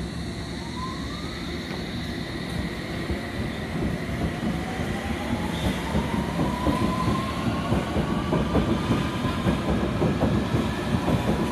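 London Underground District line S7 Stock train pulling away from a platform, its traction motors whining and rising in pitch as it gathers speed. Wheels clatter over rail joints, getting louder and quicker as the cars pass.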